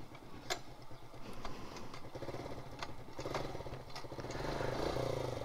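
Motorcycle engine running, with a few light clicks; the engine grows a little louder between about three and five seconds in.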